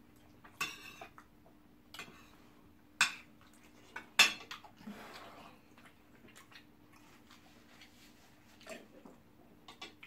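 Metal spoon clinking and scraping against a plate during a meal: a handful of sharp clinks, the loudest about three and four seconds in, with a faint steady hum underneath.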